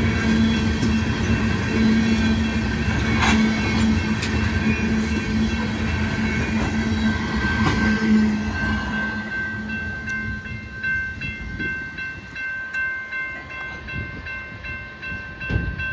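A freight train of tank cars rolling past close by: steady wheel-on-rail rumble with occasional clacks over the rail joints. After about ten seconds the rumble fades as the end of the train draws away, leaving the grade-crossing bell ringing in an even pulse.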